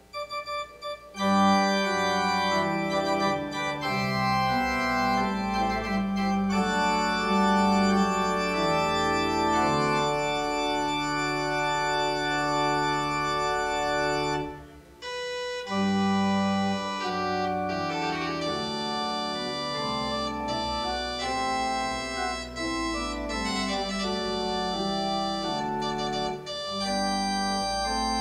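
Organ playing a postlude after the benediction, in slow held chords. It starts about a second in, breaks off briefly about halfway, then resumes.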